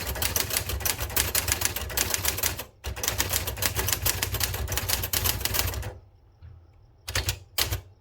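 Rapid typing on a 1970 Citizen X3 manual typewriter: a fast, even run of key clacks as the type bars strike the platen, with a brief pause just before three seconds in. The typing stops about six seconds in, followed by two short clatters near the end.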